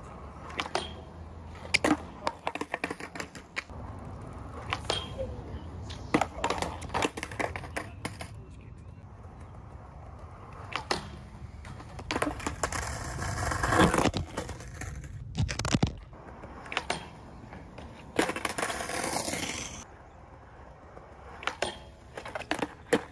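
Skateboard wheels rolling on concrete, with repeated sharp clacks of the board popping and slapping down. There are longer scraping stretches, the loudest building up about 14 seconds in.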